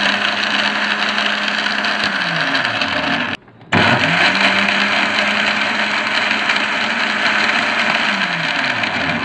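Electric countertop blender running at full speed, its motor whirring as the blades churn berries and water into juice. It cuts out abruptly for a moment about three and a half seconds in, then starts again and keeps running.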